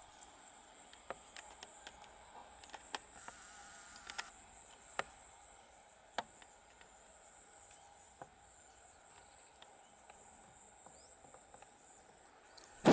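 Faint outdoor ambience: a steady high-pitched insect drone, like crickets or cicadas, with scattered short clicks.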